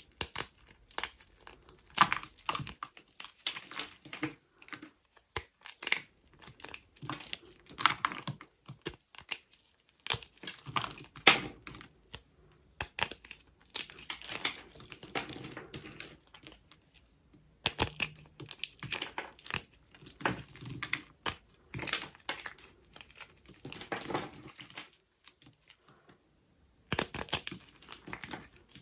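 Knife carving cubes into a bar of dry soap: crisp crunching and crackling as the blade cuts through and the cubes break away, in irregular clusters of strokes with short pauses between them.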